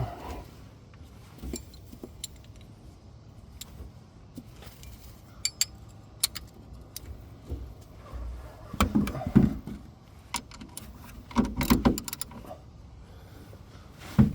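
Metal hand tools (sockets and a 3/8-inch-drive extension) clinking and jangling as they are handled, in scattered clicks with louder clusters past the middle and near the end.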